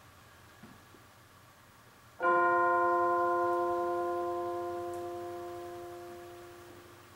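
A bell struck once, about two seconds in, ringing with several overtones and slowly fading over about five seconds.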